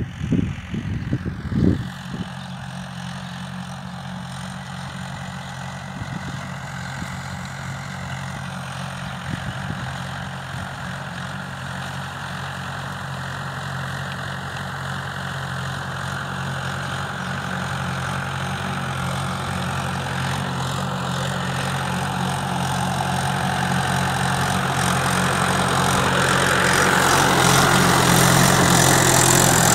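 Tractor engine running steadily while pulling a harrow, growing louder as it comes closer. Wind buffets the microphone for the first couple of seconds.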